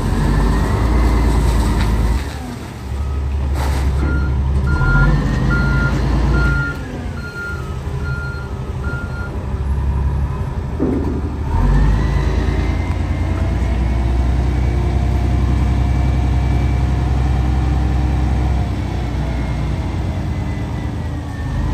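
Komatsu HM400-2 articulated dump truck's diesel engine running and revving up and down as it manoeuvres, with its reversing alarm beeping steadily for about five seconds early on. From about halfway, the engine revs up and holds high while the hydraulics raise the dump body.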